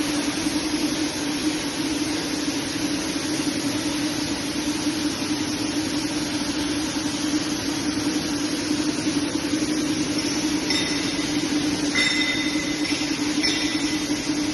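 Impact pulverizer grinder running: a steady, loud mechanical noise with a low hum. Near the end, a high-pitched tone comes and goes several times over the running noise.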